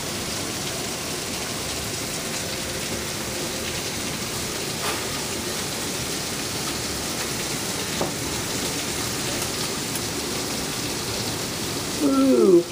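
Heavy thunderstorm downpour with hail: a steady hiss of rain pouring onto the driveway and yard, with a couple of sharp knocks. Near the end a person's voice gives a short falling exclamation, the loudest sound.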